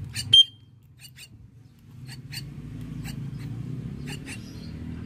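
Myna nestlings giving short, sharp begging squeaks, often two close together about once a second, the loudest near the start, over a steady low hum.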